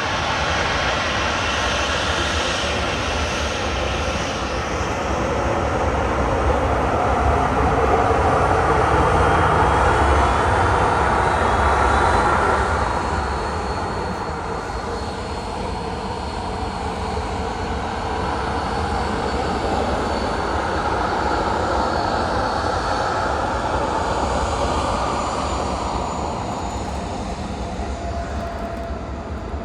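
Jet airliner's engines as it passes close by, swelling to a peak about a third of the way in and then easing off. A thin high whine comes in as the noise begins to fade.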